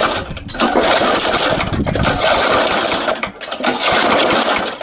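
Briggs & Stratton 3.75 HP lawnmower engine being pull-started over and over on a tank of paint thinner, about three rattling pulls of the recoil starter cranking the engine over, each cut off by a short gap.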